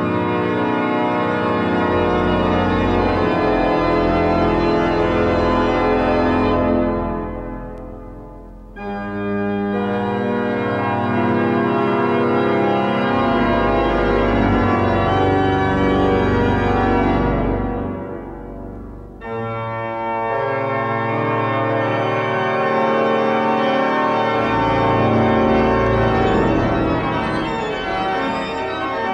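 Organ music playing full, sustained chords over a deep pedal bass. The sound dies away twice, about eight and eighteen seconds in, each time followed by a new loud chord.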